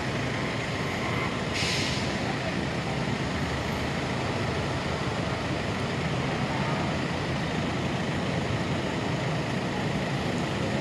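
Steady vehicle and traffic rumble, with a short burst of hiss about two seconds in.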